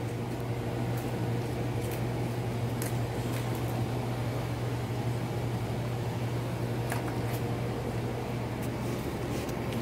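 A steady low mechanical hum, with a few faint crunches from a German Shepherd chewing a pig ear.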